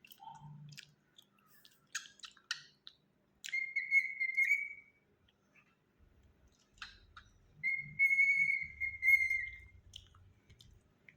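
Cockatiel whistling two held, slightly wavering notes, each about a second long, with short clicks and chirps between them.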